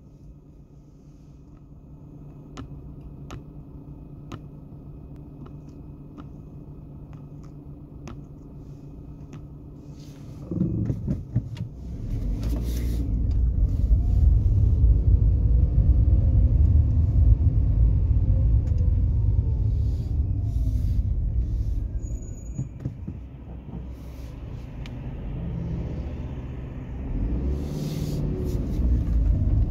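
Car engine idling, heard from inside the cabin, with a few light clicks in the first seconds; about ten seconds in the car pulls away and the engine and road rumble grow loud as it gathers speed. The rumble eases off briefly and then rises again near the end as it accelerates once more.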